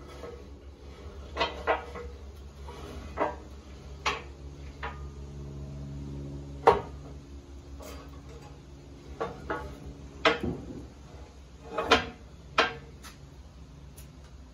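Metal clanks and knocks from an old Gannon rollover box blade being turned over by hand on its pivot, the steel box and scarifier frame knocking as they swing round. About a dozen irregular knocks, the loudest near the middle and about twelve seconds in, over a steady low hum.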